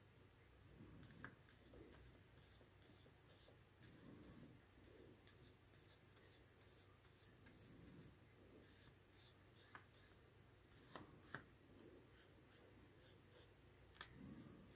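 Near silence: faint soft rubbing of a water brush pen's tip on watercolour card, with a few light ticks.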